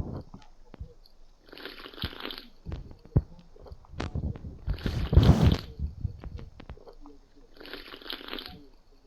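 Someone chewing and crunching food close to the microphone: irregular crisp bites and chewing, loudest about five seconds in.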